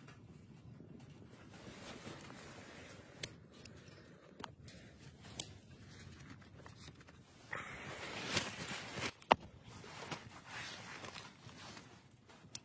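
Handling noises: rustling and crinkling while eggs are taken from their tray, with a few sharp clicks, loudest in a stretch about two thirds of the way through.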